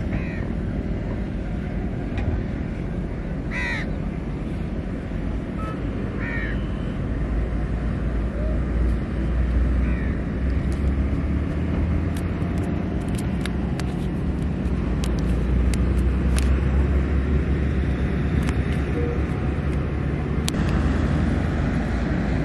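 A few short bird calls, four in the first ten seconds, over a steady low rumble, with a run of sharp clicks in the second half.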